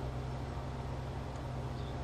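Steady low hum with an even hiss over it, and a couple of faint high ticks.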